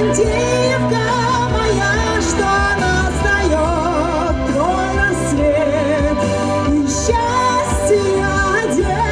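A woman singing a song with wide vibrato into a stage microphone, amplified over a pop backing track with a steady bass line and drums.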